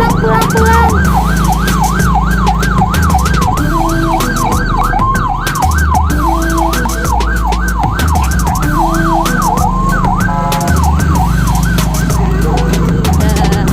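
Police car siren sounding a fast yelp, its pitch rising and falling about two to three times a second, briefly switching pattern about ten seconds in. The siren marks the end of permitted trading hours under the PPKM restrictions.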